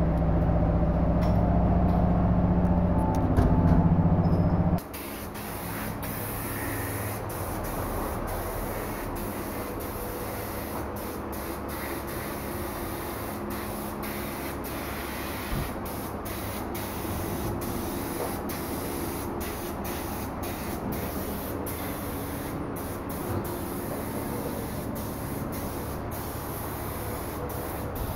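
A loud, steady machine hum stops abruptly about five seconds in. It leaves a quieter steady hiss with scattered light clicks.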